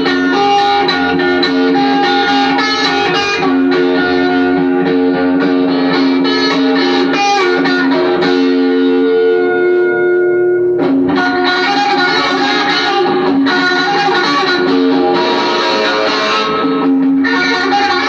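Electric guitar playing held, ringing notes, with new chords struck sharply about eleven seconds in and again near the end.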